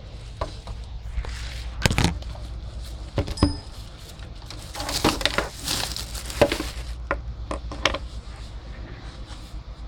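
A run of irregular knocks, clicks and clinks from objects being handled, loudest in a cluster a few seconds in, over a steady low hum.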